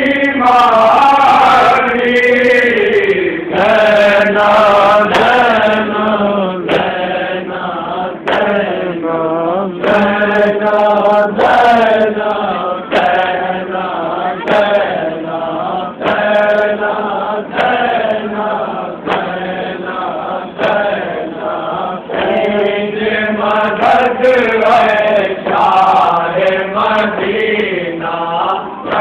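Men chanting a nauha, a Shia lament, in long sung lines, with a lead voice over a group of voices. Sharp chest-beating slaps (matam) come through about once or twice a second.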